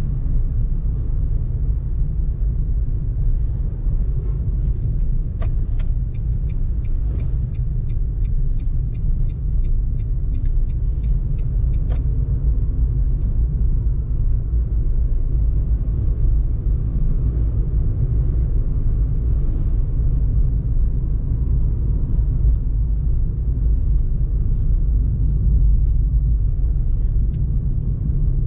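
Car driving at low speed, heard from inside the cabin: a steady low rumble of engine and tyre noise. A short run of quick, regular faint ticks comes about six seconds in and lasts about four seconds.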